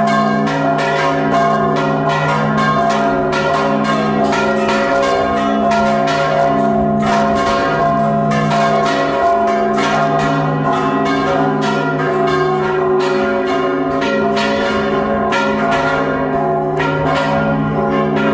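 Repique of several church bells rung together by hand, the clappers of a large bell and smaller bells pulled by rope and struck in a fast, overlapping rhythm, the big bell's low tones ringing on underneath.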